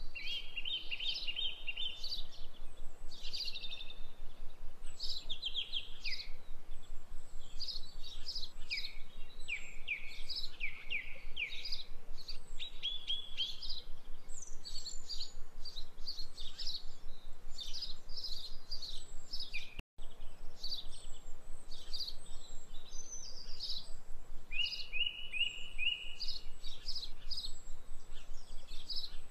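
Small birds chirping in quick, repeated phrases and short trills over a steady low hiss, with a brief dropout about two-thirds of the way through.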